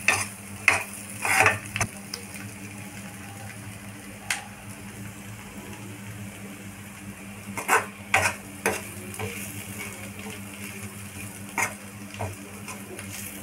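Long steel spoon stirring potato fry in a non-stick kadai, scraping and knocking against the pan in clusters near the start and again in the second half, with a quieter stretch between. Light sizzling and a steady low hum run underneath.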